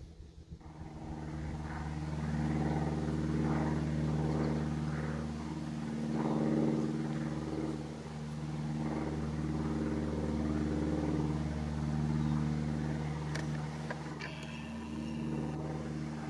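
Steady drone of an engine running at a constant speed, one low pitched hum that swells and eases a little without changing pitch.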